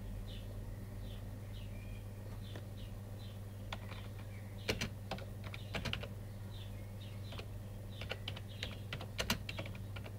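Computer keyboard being typed on in short spells of clicks, the loudest a little before the middle and again near the end. A bird chirps repeatedly in short falling chirps through the first few seconds and again later, over a steady low hum.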